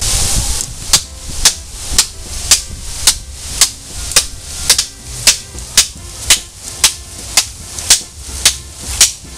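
Albatroz LD-101 stainless-steel (420C) survival knife chopping bamboo stalks: sharp, even strikes, about two a second.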